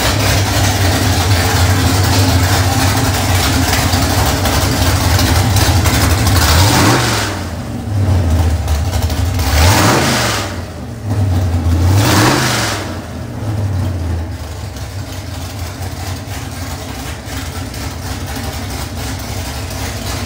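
Carbureted 347 stroker small-block Ford V8 running on an engine dyno. It is blipped three times in quick succession, at about 7, 10 and 12 seconds in, each rev rising and falling back. It then settles to a steady idle.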